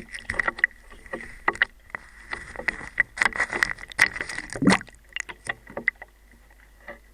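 Water sloshing and splashing with irregular clicks and knocks as a cough syrup pack is handled underwater. The handling is busiest in the first five seconds and dies down about six seconds in, over a faint steady high tone.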